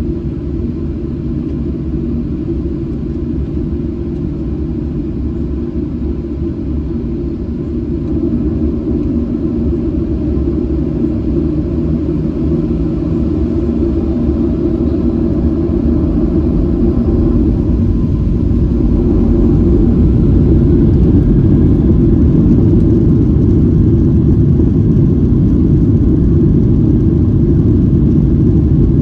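Boeing 737-700 jet engine noise heard inside the passenger cabin: a steady low rumble that grows louder about eight seconds in and again around twenty seconds in, as the jet begins to move.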